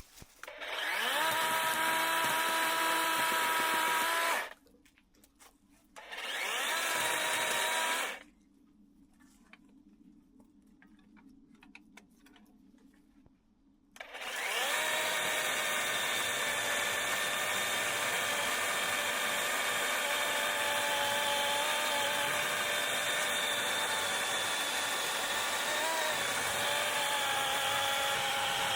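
Electric power tool motor run in three goes, spinning up to a steady whine each time: about four seconds, then a couple of seconds, then after a pause it runs on without a break from about halfway through. It is cutting through the net wrapped around a tree and the tree itself.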